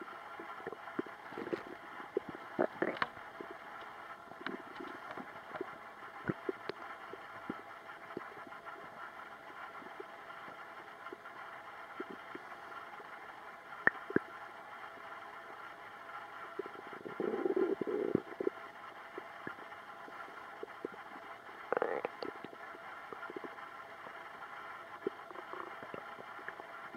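Human stomach gurgling: scattered short pops and gurgles, with a longer bubbling gurgle about two-thirds of the way in and a shorter one soon after, over a faint steady hum.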